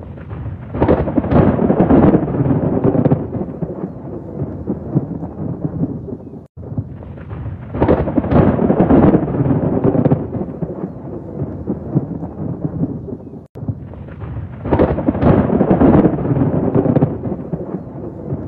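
Thunderstorm: three rolls of thunder about seven seconds apart, each swelling loud for a couple of seconds and then easing off into steady heavy rain. The same seven-second stretch repeats, with a momentary drop to silence before each repeat.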